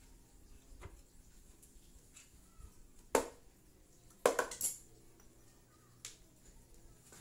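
A few sharp clinks and knocks, like tools or metal parts being handled during work on a motorcycle: one about three seconds in, a quick cluster of three or four a second later, and a faint one near the end.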